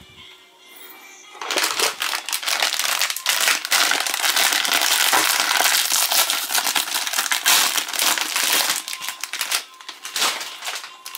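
Plastic wrapper of a Chipicao croissant crinkling loudly as it is pulled open by hand. The dense crackling starts about a second and a half in and eases off near the end.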